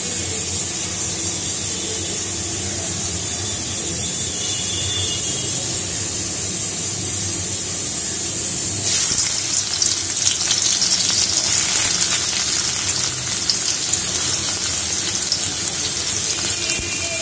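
Steady hiss of oil heating in a black iron wok over a gas flame. About halfway through, sliced onions go into the hot oil and it turns into a crackling sizzle that carries on: onions frying.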